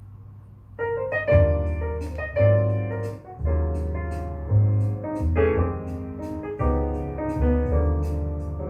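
Recorded piano music with a bass line and a light regular high tick, played back through a single-ended valve amplifier and loudspeakers. A faint low hum is heard before the music starts, about a second in.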